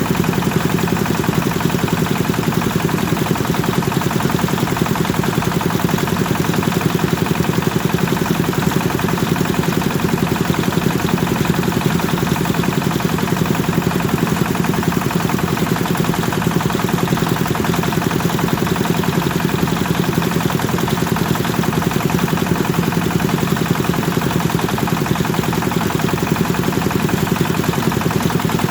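Kubota engine of a rice threshing machine running steadily, a fast, even chugging that holds constant.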